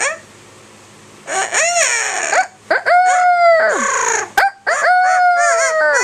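Yellow-naped Amazon parrot imitating a rooster crowing, a 'sick rooster' crow: after about a second of quiet, a short rising-and-falling call, then two long drawn-out crows whose pitch slowly falls, with a sharp click between them.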